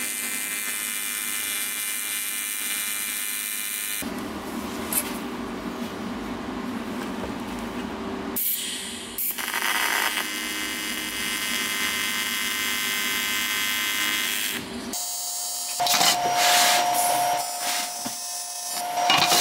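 AC TIG welding arc buzzing steadily as aluminium tabs are welded onto an aluminium radiator. The arc runs in a few stretches with short breaks between them.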